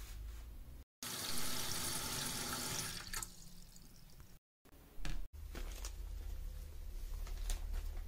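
Tap water running into a plastic bowl in a stainless steel sink for about two seconds, then fading. Near the end comes scratchy rustling of dry sphagnum moss being handled.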